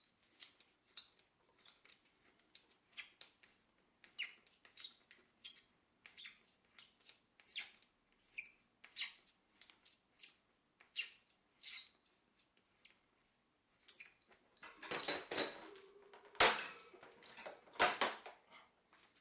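Repeated short, high-pitched squeaks about every half second to second, from working the drain hose and its fitting loose on a countertop dishwasher. Near the end come two louder rushes of noise with a couple of thumps.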